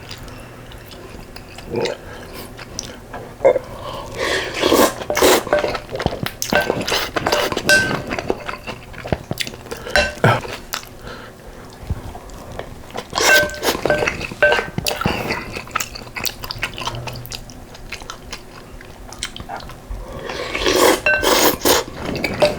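A person chewing and crunching a mouthful of fresh cabbage kimchi and soup-soaked rice, in bursts of wet crunching separated by quieter stretches, with a few clinks of a spoon against a bowl.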